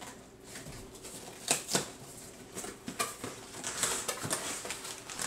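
Cardboard box being pulled open by hand: scraping and rustling of the flaps, with two sharp snaps about a second and a half in, then a denser crinkling rustle of cardboard and paper packing near the end.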